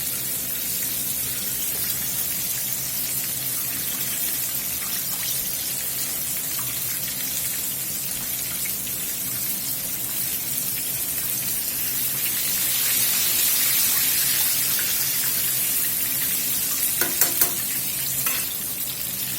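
Breaded chicken thighs frying in about an inch of hot canola oil in a skillet: a steady sizzle that grows louder about two-thirds of the way through. A few short clicks come near the end.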